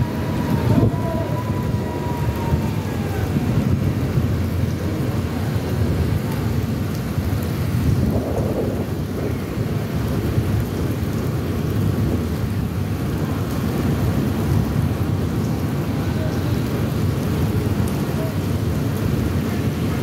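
Thunderstorm: a steady low rumble of rain and wind with thunder.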